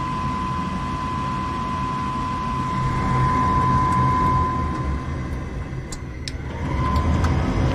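Gas furnace's draft inducer motor running with a steady hum and a thin high whine during an ignition cycle in which the burners fail to light, with a few light clicks near the end.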